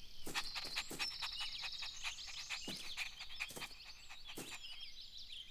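Cartoon outdoor ambience of many small birds chirping, with a string of short, irregular clicks.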